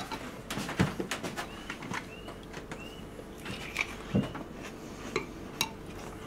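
Spoon clinking and tapping against a bowl and dishes at a table, with a bird chirping a few times in the background.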